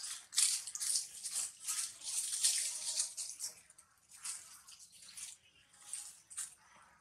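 Dry leaf litter rustling and crackling in quick, irregular bursts as macaques shift about on it. The bursts are thick for the first three seconds or so, then come sparser.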